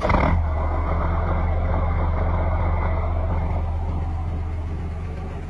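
Old semi truck's diesel engine running steadily with a deep, even drone, easing slightly quieter toward the end.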